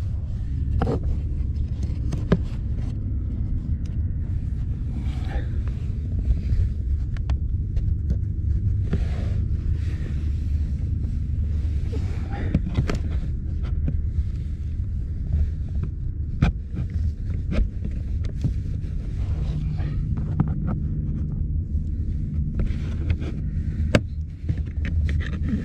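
Scattered clicks and light knocks of hands and a screwdriver on plastic trim under a car's dashboard, over a steady low rumble.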